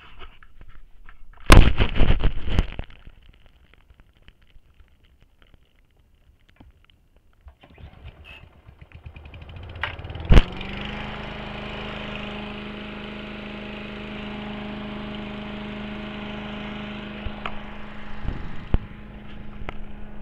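A burst of loud knocks and scraping from the camera being handled and set down. About ten seconds in, the four-stroke OHV lawn mower engine is pull-started with one sharp pull, catches, spins up and then runs at a steady speed, with more handling knocks near the end.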